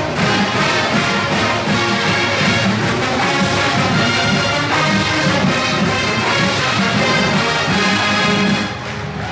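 College marching band playing: brass, trombones among them, over a steady drum beat, breaking off near the end.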